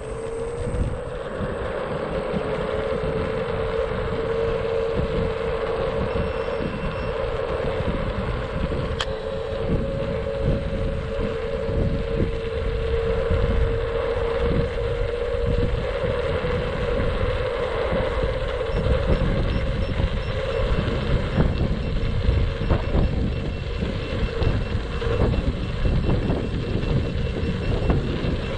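Wind buffeting the microphone and tyre rumble on asphalt from a Xiaomi Mi 1S electric scooter gaining speed downhill, with a steady whine from its hub motor that fades after about twenty seconds as the wind noise grows.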